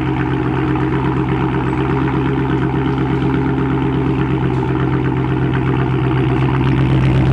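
Dodge Charger 392's 6.4-litre HEMI V8 idling steadily through a straight-piped exhaust, its mufflers and mid mufflers removed. The idle swells slightly near the end.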